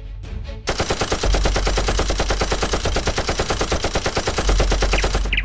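Rapid automatic machine-gun fire, one long unbroken burst that starts under a second in and stops just before the end.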